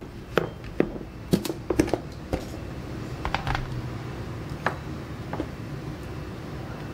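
Sharp taps and knocks from a clear plastic food container handled on a wooden counter while raw chicken breast is taken out, several in quick succession in the first couple of seconds and a few more later, over a steady low room hum.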